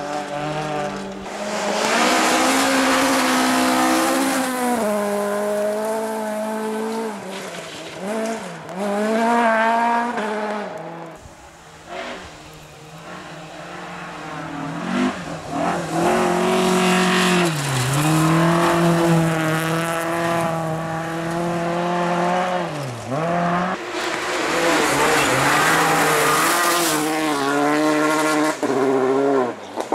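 Several rally cars at full throttle on a gravel stage, one after another. The engines rev up hard and drop sharply at each gear change or lift-off, with a loud hiss of tyres and flung gravel as each car slides past.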